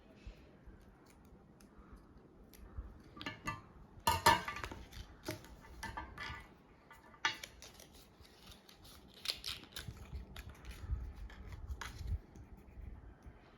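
Scissors snipping paper in short, crisp, irregular bursts, the loudest about four seconds in.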